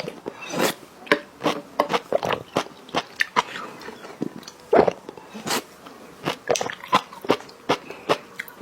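A person eating: irregular sharp crunches and mouth clicks, several a second.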